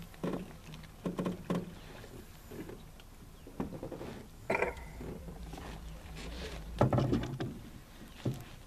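Scattered knocks and bumps on the hull of a small metal fishing boat while a caught fish is handled. The loudest is a heavier thump about seven seconds in.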